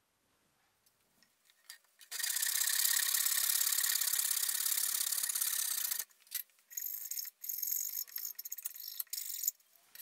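Sandpaper on a wooden block rubbed along the cut edge of an MDF board: a steady abrasive rasp for about four seconds, then a run of shorter scraping strokes that stops near the end.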